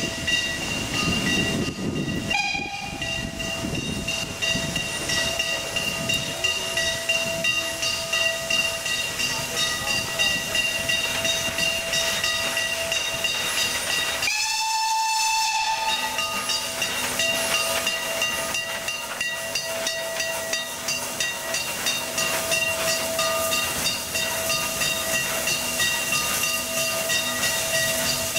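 Steam locomotive running slowly, with a steady hiss of steam and rattle of the running gear; a steam whistle blows once about halfway through for about a second and a half.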